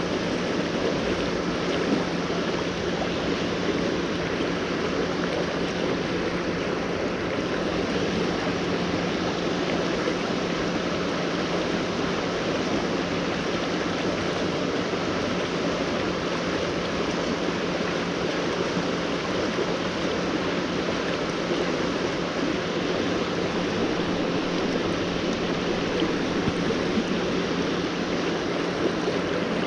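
Fast-flowing creek water rushing below a dam, an even, unbroken rush, with a steady low hum underneath.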